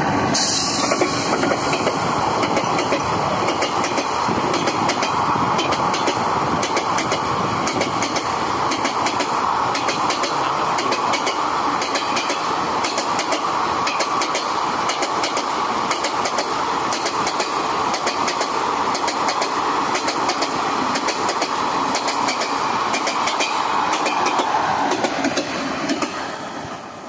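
An express train hauled by a WAP4 electric locomotive passing at speed: the coaches' wheels clatter over the rail joints in a fast, steady run of clicks over a loud rushing noise, which fades near the end as the last coach goes by.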